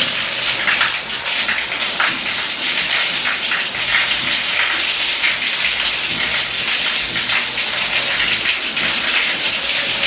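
Water gushing out of the opened element port of an electric storage water heater and splashing steadily onto a tiled floor as the tank is drained during servicing. The water carries sand and sediment from inside the tank.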